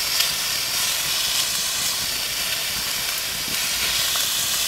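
Cut-up steak sizzling in a pan over a campfire: a steady hiss with a few faint crackles.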